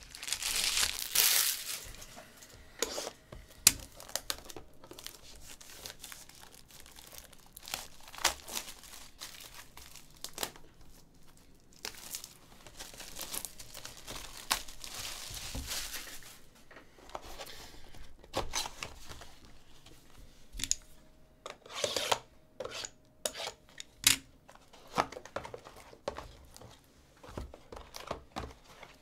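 Cellophane shrink wrap being torn and crinkled off a sealed cardboard box of trading cards, with loud tearing about a second in and again for several seconds midway. Light cardboard knocks and rustles follow as the box is opened and handled.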